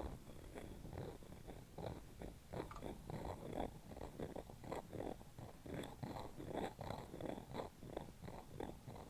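A tool rasping over a hollow capsule in quick, uneven strokes, about three or four a second, making a rough, purr-like rattle.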